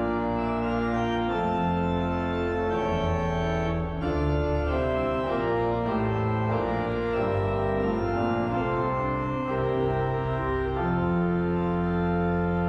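Pipe organ playing a Christmas arrangement in full sustained chords over a deep bass, the chords changing about every second. Near the end a low bass note is held under the harmony.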